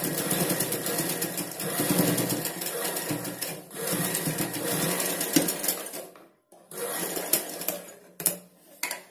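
Domestic straight-stitch sewing machine running a straight seam through folded cloth with a fast, even stitching rhythm. It falters briefly about a third of the way in, stops for a moment after about six seconds, then runs again in short spurts.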